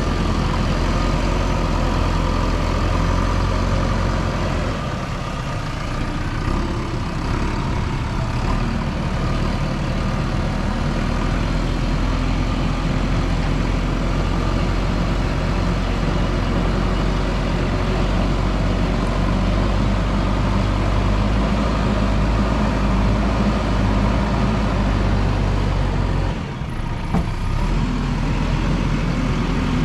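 JCB 3DX backhoe loader's diesel engine running steadily while it works, with the engine note dipping briefly twice.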